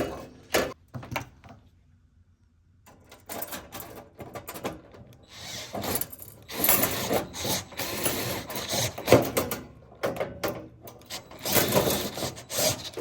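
Clicks, scraping and clattering of small metal hardware and a screwdriver as a screw is fitted to fix the fan in place, with a short pause about two seconds in and steadier handling noise from about five seconds on.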